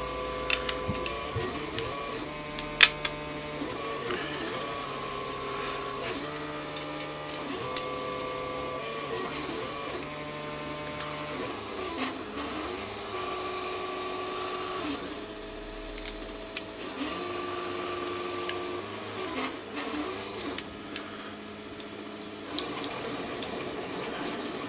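3D printer stepper motors whining as the printer moves: steady tones that jump to a new pitch every second or two, sliding up or down at each change. Occasional sharp clicks of small metal parts being handled.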